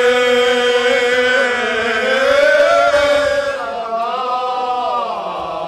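A group of men singing a Cretan rizitiko song in unison, holding long drawn-out notes. The voices rise a little in pitch about halfway through and ease down near the end.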